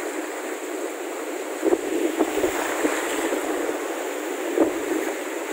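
Sea surf washing in over the shallows, a steady rushing hiss, with wind buffeting the phone's microphone in gusts about two seconds in and again near the end.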